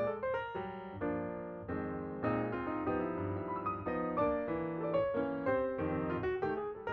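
Background piano music: a melody of quick struck notes over sustained chords.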